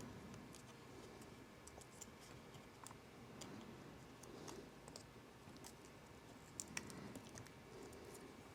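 Faint, scattered small clicks and light scratches of a phone and its screen adhesive being handled as the plastic backing is peeled off, with two slightly sharper clicks about six and a half seconds in.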